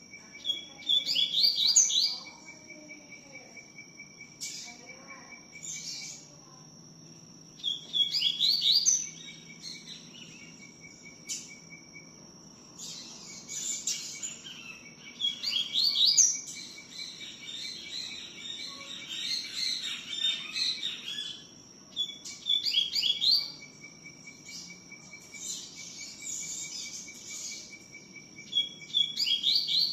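Double-collared seedeater (coleiro) singing its 'tui tiu' song: short bright phrases of quick rising notes repeated every few seconds, with one longer, fuller run of song about halfway through.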